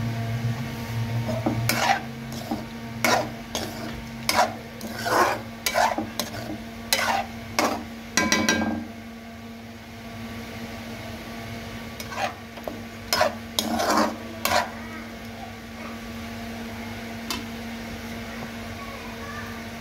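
A slotted metal spatula scraping and stirring chicken and thick masala in a metal pot: a run of scrapes for several seconds, then a few more after a pause. Underneath are a light sizzle and a steady hum.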